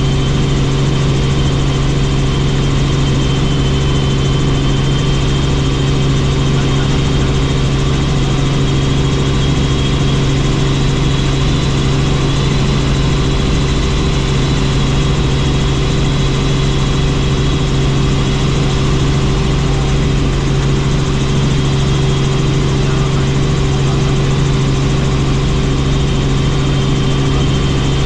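Helicopter in steady flight: a loud, unchanging drone of engine and rotor with a thin high whine on top.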